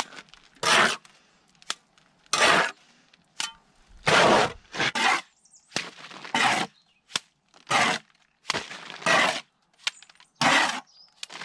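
Steel pointing trowel scraping wet cement mortar off a mortar board and onto concrete blocks, about ten rasping strokes roughly a second apart with small clicks between them. The mortar is a runny 1:2 cement-and-sand scratch coat.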